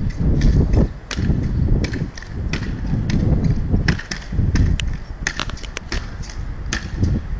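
Skyrunner spring jumping stilts landing on paving in a bouncing run: sharp clacks about twice a second, over a steady low rumble.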